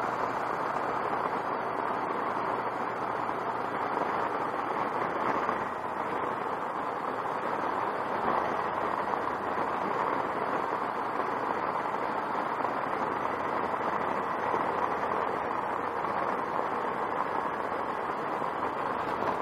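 Motorcycle riding at a steady speed, heard from a camera on the bike: a steady rush of wind and road noise, with the engine running beneath it.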